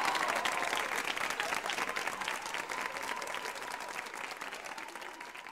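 Theatre audience applauding a choir, the dense clapping gradually fading away toward the end.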